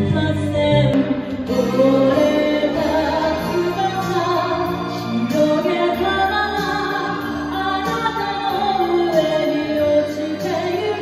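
A woman singing a slow ballad into a microphone over a backing track, with long held notes. The sound changes abruptly about a second in, where the recording switches from a small room to a stage.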